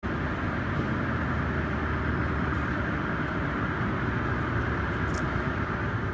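Steady mechanical din of factory machinery with a low rumble, and a brief high squeak about five seconds in.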